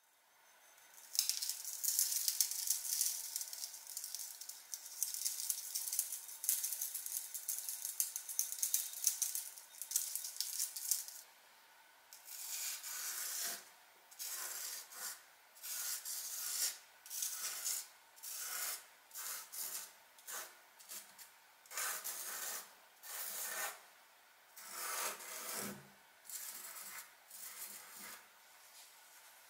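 Fine rust powder being scattered over a flat surface, a continuous gritty hiss for about ten seconds. Then a gloved fingertip drags through the powder in short separate scraping strokes, about one a second, writing letters in it.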